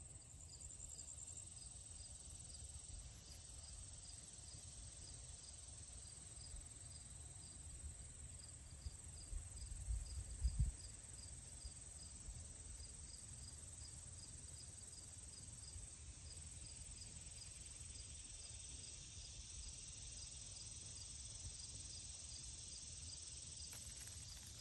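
Summer insects, such as crickets, chirping faintly: a steady high trill with a regular chirp repeating about twice a second. Low wind or handling rumble throughout, with a few louder low bumps around ten seconds in.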